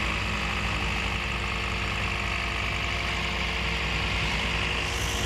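Toyota Yaris four-cylinder petrol engine idling steadily, being tried after a dead ignition coil was replaced and all four spark plugs renewed to cure a misfire.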